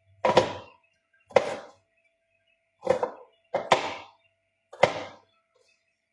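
A kitchen knife chopping down hard on a cutting board: five heavy strikes, unevenly spaced about a second apart.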